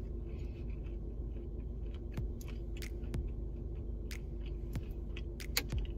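Chewing and biting a thick brownie loaded with Oreos, chopped peanuts and peanut M&Ms, with a scatter of sharp little crunches and clicks.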